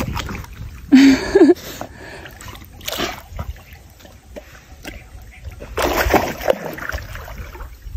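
Golden retriever splashing in shallow water, pawing and sloshing, with the biggest splash about six seconds in. A loud short vocal cry with a wavering pitch about a second in.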